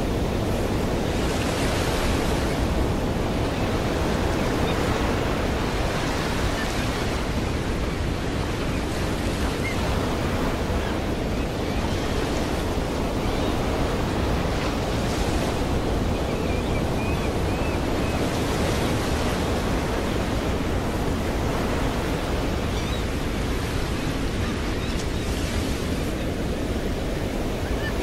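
Ocean surf breaking and washing up the shore: a steady rush of water with louder hissing washes of waves every few seconds.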